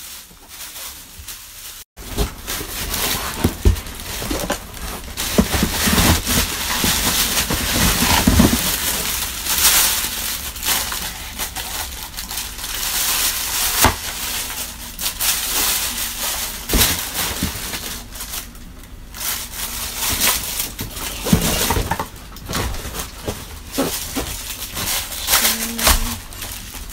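Plastic packaging rustling and crinkling as a vacuum cleaner's hose and parts are pulled out of their bags, with scattered sharp clicks and knocks against the cardboard box. Quieter for about the first two seconds, then continuous.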